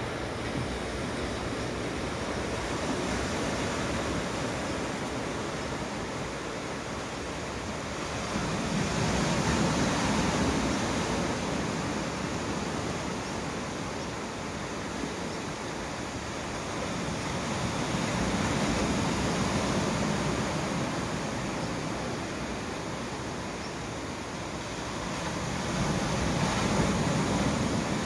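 Sea surf washing onto a beach, a steady rushing that swells three times as waves break, with some wind buffeting the microphone.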